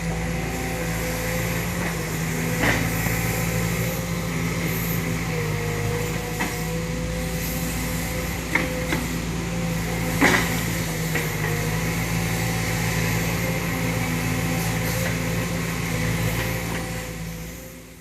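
Sumitomo SH210 hydraulic excavator running, a steady diesel engine drone with a higher tone that wavers, and a few sharp knocks, two of them louder. The sound fades out near the end.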